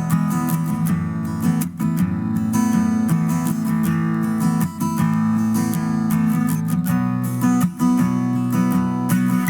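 Intro background music: strummed acoustic guitar with a steady rhythm.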